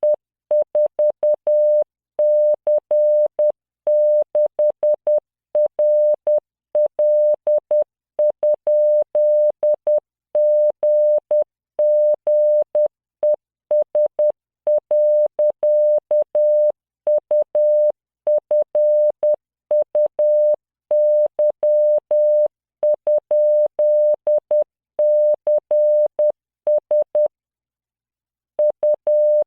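Morse code practice tone generated by software, a 600 Hz tone keyed in dots and dashes at 10 words per minute and spelling random letters, numbers and punctuation. There is a pause of about a second near the end.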